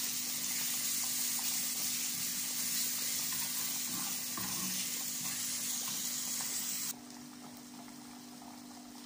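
A green mixture of garlic and coriander frying in ghee in a pan, sizzling steadily while a spatula stirs it. The sizzle drops suddenly to a quieter level about seven seconds in.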